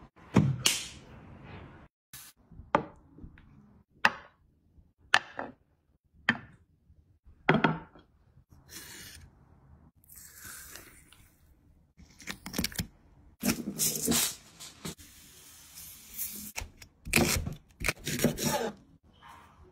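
Kitchen preparation sounds: a run of sharp knocks and clicks about once a second, then wet rustling as a raw squid is handled, and near the end dense knocks and scrapes of a knife cutting through ginger on a plastic cutting board.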